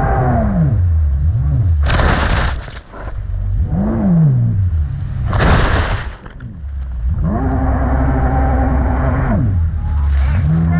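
Jet ski engine revving up and easing off about four times, its pitch rising, holding and dropping, with loud rushes of water and wind noise in between.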